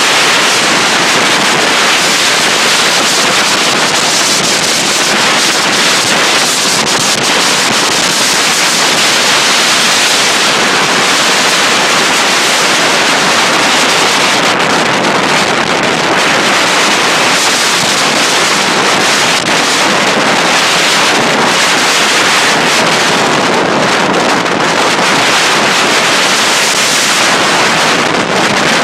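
Storm winds of 60+ mph buffeting the microphone over huge waves breaking on the shore: a loud, steady rushing noise that swells and eases slightly.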